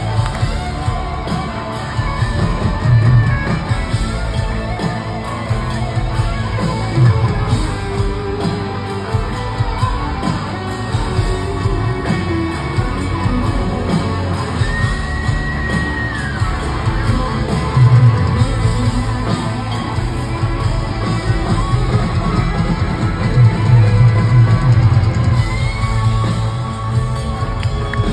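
Live rock band at a sound check, with electric guitar playing lead lines and bending notes over bass and drums.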